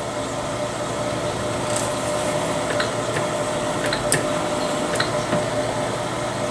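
Electric drill running steadily with a primer pocket crimp-removal tool chucked in it, cutting the crimp out of .223 brass cases, with a few light clicks as cases are handled.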